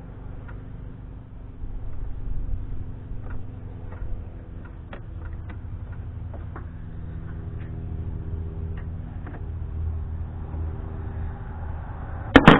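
Small clicks and taps of a wrench and hands working the side-mount battery terminal bolts, over a steady low background rumble, with one loud sharp clack near the end.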